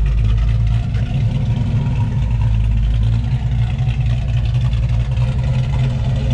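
An LS-swapped 5.3-litre V8 in a Chevrolet OBS Sport pickup idling with a steady, deep exhaust rumble.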